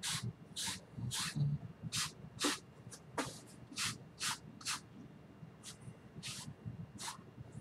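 Brush swishing across a canvas in short blending strokes through wet oil paint, about two strokes a second.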